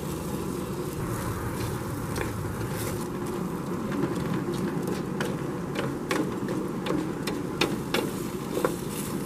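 Wooden spoon stirring rice and chicken in a steel paella pan: a run of scrapes and knocks against the pan from about four seconds in, over a steady low hum.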